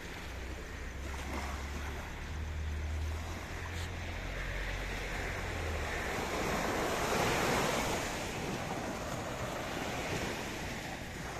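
Small sea waves breaking and washing over the shallows, swelling loudest about two-thirds of the way through, with wind rumbling on the microphone in the first half.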